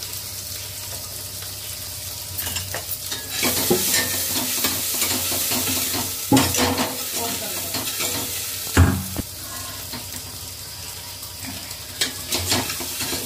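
Spiced masala frying and sizzling in hot oil in a pan as it is stirred. The sizzle swells about three and a half seconds in, and the spoon knocks against the pan several times, most sharply about six and nine seconds in.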